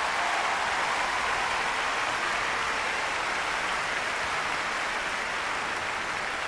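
A large concert audience applauding steadily after the song ends.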